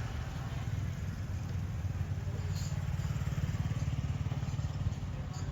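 A small engine running steadily, a low, evenly pulsing rumble that swells slightly around the middle.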